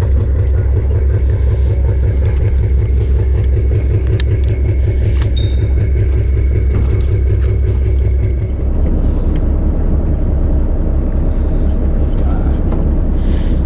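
Fishing boat's engine running steadily with a low rumble, its tone shifting slightly about two-thirds of the way through.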